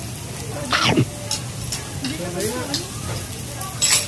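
Steady hiss of restaurant background noise, with a brief clatter about a second in and another near the end, and a short quiet murmur of a voice in between.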